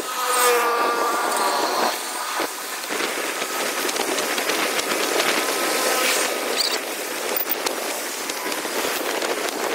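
Street traffic noise: a steady mix of passing vehicles, with a pitched tone among it in the first couple of seconds.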